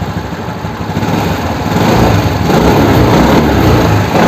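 Suzuki Access 125 scooter's single-cylinder four-stroke engine running, growing louder about a second or two in. It runs smoothly without the earlier rattle, freshly rebuilt after running without oil: rebored, with new valves, rocker arms, camshaft, timing chain pads, tensioner and oil pump.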